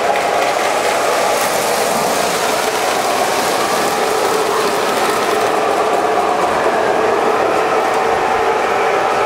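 O27 three-rail electric model trains running: a steady mechanical whir of locomotive motors and gearing with metal wheels rolling on the track.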